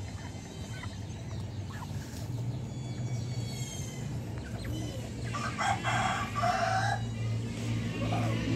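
A rooster crowing once: a single multi-part crow lasting under two seconds, a little past the middle, over a steady low hum.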